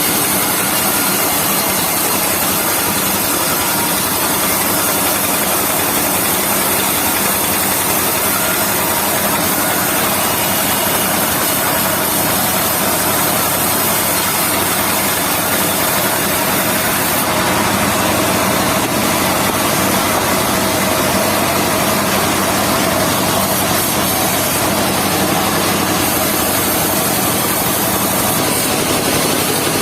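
Travelling circular-saw sawmill running steadily and loudly: its engine and spinning blade.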